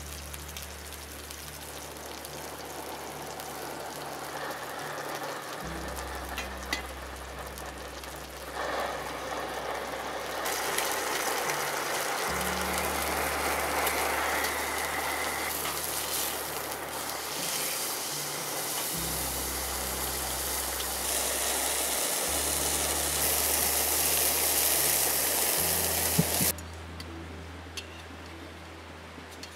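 Steak sizzling in a frying pan, a noisy hiss that swells about a third of the way in and cuts off suddenly near the end. Soft background music with sustained low notes plays underneath.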